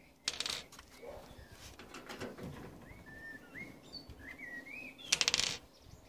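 Screws and screwdriver handled against a tumble dryer's top panel: a short clatter about a quarter second in and a louder quick rattle about five seconds in. A bird chirps several times in between.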